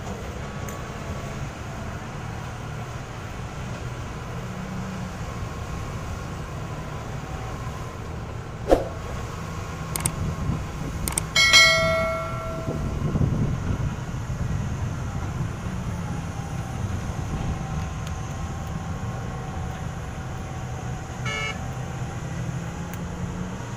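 Distant diesel engines of rigid haul trucks and an excavator working an open-pit mine: a steady low drone that swells a little around the middle as a truck passes. A few sharp clicks and a short high tone come around the middle.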